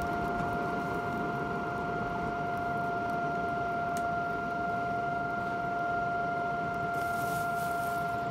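Forge air blower fan running on low, a steady whine over an even rush of air feeding the coal fire, with a faint tick about four seconds in.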